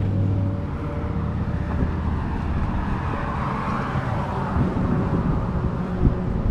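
A heavy diesel engine running steadily with a low hum, and a rushing noise that swells and fades in the middle.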